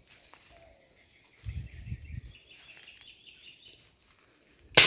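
Faint outdoor chirping with a few low thuds, then one sharp, loud bang near the end that dies away within half a second.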